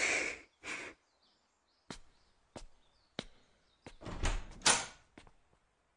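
A series of about nine short knocks and brief rustles at irregular intervals, the loudest two about four and a half seconds in, with faint bird chirps behind them.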